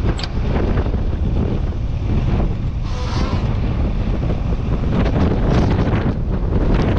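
Wind buffeting the microphone: a loud, steady low rumble, with a few faint knocks over it.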